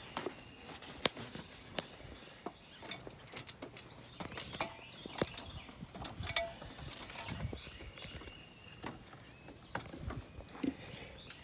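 Footsteps and climbing onto a roof: irregular sharp knocks and clicks, no steady rhythm.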